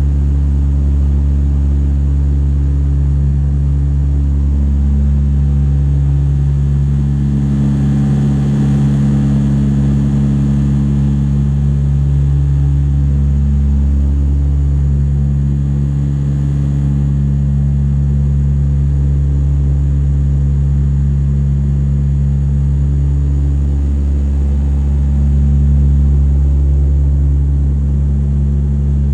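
Cabin drone of a de Havilland Canada Dash 8-100's twin turboprop engines and propellers in flight: a steady low hum with strong propeller tones that swell and ease every several seconds.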